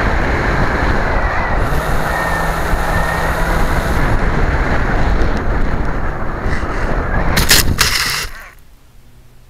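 Wind rush and motor noise picked up by a small radio-controlled aircraft's onboard camera. About seven and a half seconds in come a few sharp knocks as the aircraft crashes into the sandy ground, and then the noise cuts off.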